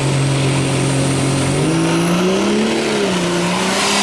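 Dodge Ram pickup's Cummins diesel engine running at steady revs, then revving up about a second and a half in, its pitch rising, dipping briefly and rising again. A thin high whine climbs steeply in pitch alongside it.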